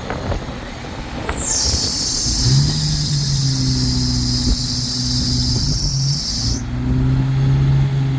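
Vehicle-mounted electric winch pulling a non-running Jeep up onto a trailer: a high-pitched whine that spins up about a second and a half in and cuts off sharply near the end. Underneath are the steady hum of the running Jeep's engine and wind buffeting the microphone.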